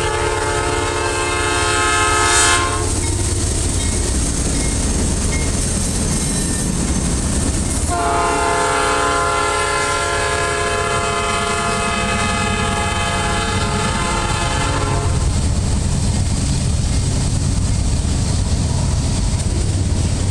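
Nathan P5 five-chime air horn on Norfolk Southern AC44C6M locomotive 4113 sounding two blasts: one ending about three seconds in, then a long one from about eight to fifteen seconds. Underneath is the steady rumble of the passing freight train's locomotives and cars on the rails.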